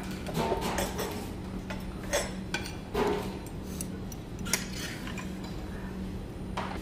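Spoon and chopsticks clicking and clinking against bowls and plates while eating: a scattering of separate light clicks, over a steady low hum.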